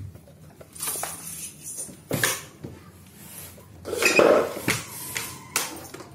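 Scattered metal clinks and knocks from a door lock and its hardware being handled, a handful of sharp hits with the loudest cluster about four seconds in, as the lock in a newly cut strike hole in a steel door frame is about to be tested.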